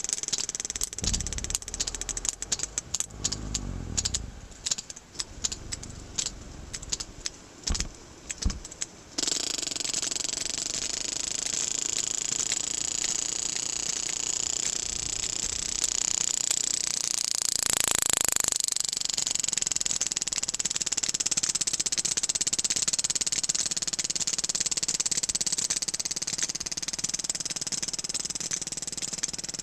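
Sperm whale echolocation clicks recorded underwater beside a fishing line: an irregular train of sharp clicks at changing rates over a low rumble. About nine seconds in the clicks stop abruptly and a steady hiss with a high whine takes over, swelling briefly about halfway through.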